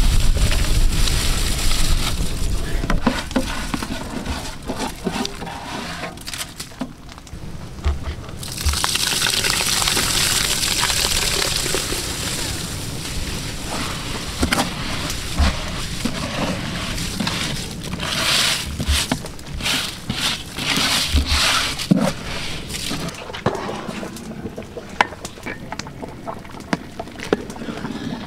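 Soaked rice being tipped from an aluminium basin into a big pot of boiling spiced water for biryani: splashing and bubbling liquid with knocks of metal vessels, loudest for a few seconds about a third of the way in.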